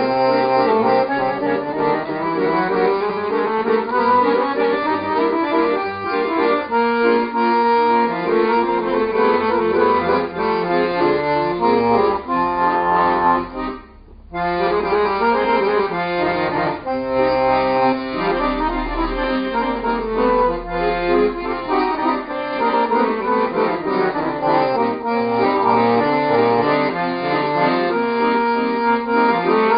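Piano accordion played solo: a tune of held notes with several sounding together, broken by a brief pause about halfway through.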